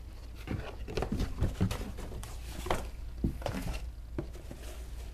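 A small cardboard box and its paper inserts being handled and opened by hand: a run of irregular rustles, taps and scrapes, busiest about one to two seconds in, over a steady low hum.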